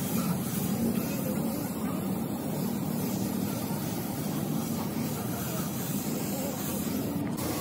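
A steady, low mechanical drone, as from a running engine or machine.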